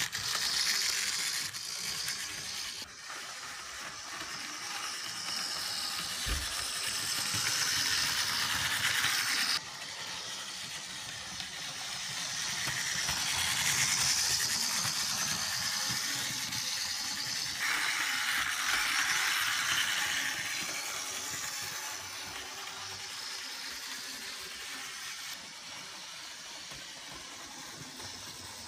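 Mainline Railways OO-gauge GWR 2301 Class Dean Goods 0-6-0 model locomotive running along the track: its small electric motor and wheels make a steady whirring rattle that swells and fades several times as it passes close by. The owner calls it a bit of a rough runner, as expected of an older model.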